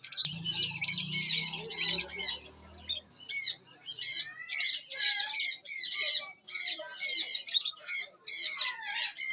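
Many small birds chirping and squawking together in rapid, high-pitched runs of calls, with a faint low hum under the first few seconds.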